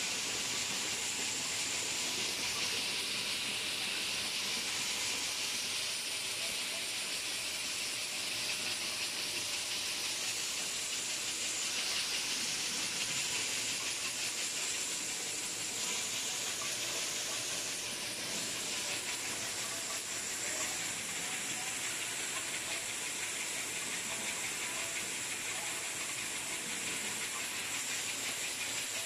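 Automatic wine bottle cap assembly and lining machine running, a steady hiss with its energy high in pitch and no breaks.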